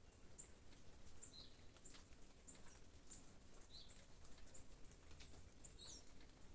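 Small birds chirping faintly with short, high, repeated chirps, about two a second, over light rain, with scattered drops tapping.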